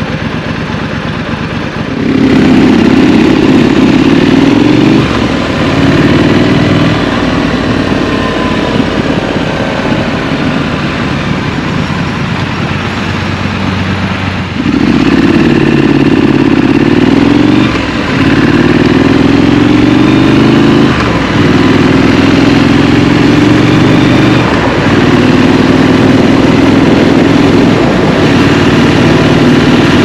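Street scrambler motorcycle engine accelerating through the gears, its pitch rising in each gear and dropping briefly at each upshift. One pull starts about two seconds in; after a quieter cruising stretch, a second, longer pull starts about halfway and runs through four quick shifts.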